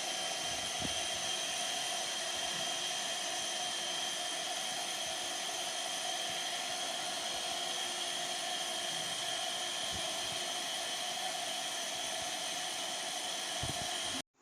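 Electric mixer running steadily at constant speed, blending cake batter, then switched off abruptly near the end.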